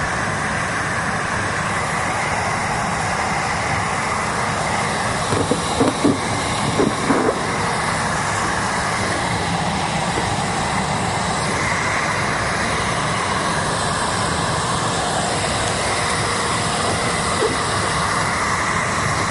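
Handheld electric heat gun running, its fan blowing a steady stream of hot air as it is passed over vinyl wrap to shrink and set it down.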